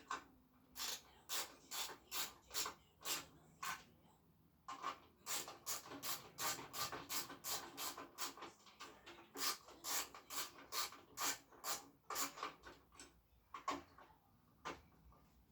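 Hand-tool work on a motorcycle part: a run of short rasping strokes, about two a second, pausing briefly about four seconds in and again near the end.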